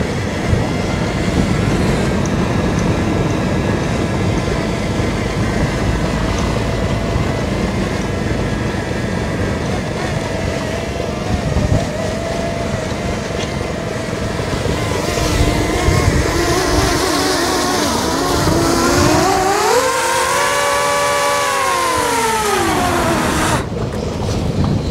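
Fishing boat's Mitsubishi S6R six-cylinder marine diesel running with a loud, steady low rumble just after start-up. Late on, a pitched whine rises and falls over a few seconds.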